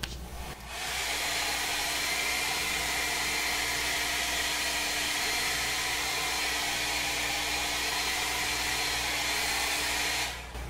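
Handheld hair dryer blowing steadily with a hiss and a faint steady hum. It starts about a second in and stops just before the end. It is heating protective tail light film to shrink out bunching.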